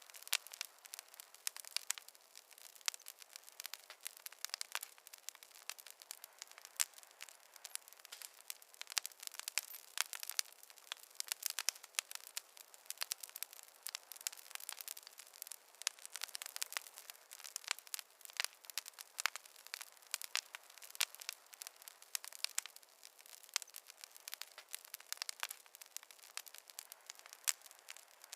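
Fireplace fire crackling: a dense, irregular run of small pops and snaps over a faint hiss, with no low rumble.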